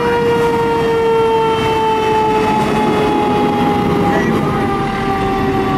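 Fire engine's warning device sounding one long held tone that slowly falls in pitch, over the rumble of the fire apparatus pulling out.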